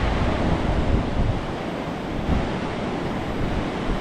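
Wind of around 19 mph buffeting the GoPro Hero 10 Black's built-in microphone, a heavy, uneven low rumble, over the wash of surf.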